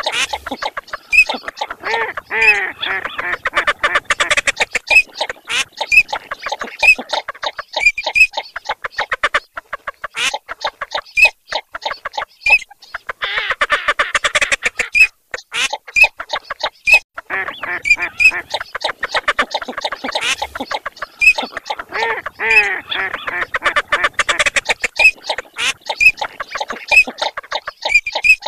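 A mixed chorus of Eurasian teal and northern shoveler calls: dense runs of quick, short quacking and chattering notes with high short whistles among them, swelling and thinning every few seconds.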